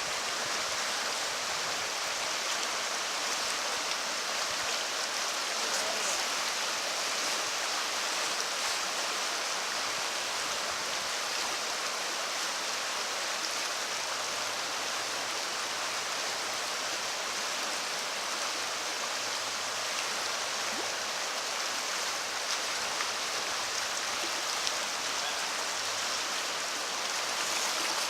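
Elbow River water flowing steadily, a constant rushing wash with no breaks.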